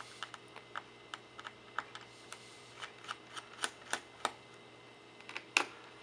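Small screwdriver turning out the screws of the memory cover on the underside of a Lenovo ThinkPad X220: a faint run of light, irregular clicks and ticks, with one louder click about five and a half seconds in.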